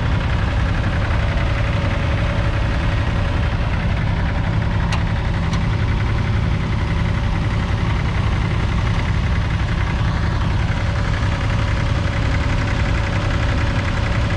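1981 Massey Ferguson 1010's 0.9-litre three-cylinder diesel engine running steadily under load as the mini tractor pulls a single-furrow trailed plough. Two brief clicks come about five seconds in.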